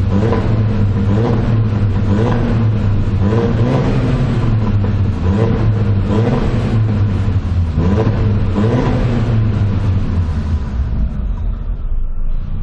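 Audi TT 225 quattro's turbocharged 1.8-litre four-cylinder engine through an aftermarket exhaust (THS cat-replacement silencer, Ragazzon mid silencer, Remus rear box), its revs rising and falling again and again. It settles to a lower, steadier note after about ten seconds.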